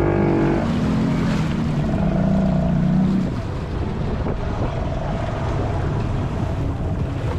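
Honda ATV engines running under throttle; the engine note eases off a little just over three seconds in and settles to a steadier drone.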